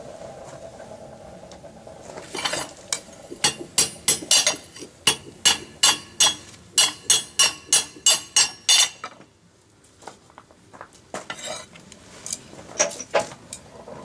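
Hand hammer striking glowing-hot steel on a steel welding plate over an anvil: a quick run of light, ringing blows, about three a second for some six seconds, then a pause and a few scattered blows near the end. The blows are setting a forge weld in the belt buckle's outer ring at welding heat.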